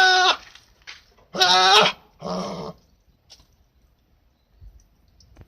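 Goat bleating: the end of one bleat at the start, then a loud wavering bleat about a second in, followed at once by a shorter, quieter one.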